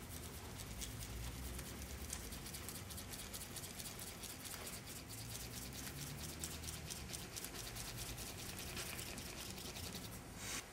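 A thin plastic stick spun fast between the palms in a plastic bowl of cornstarch and water: a steady, scratchy scrubbing made of rapid ticks as the hands rub the stick and it twirls in the thick mixture.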